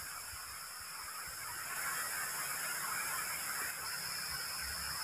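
Rushing water rumbling steadily, with a steady high-pitched chorus over it that grows a little louder near the end.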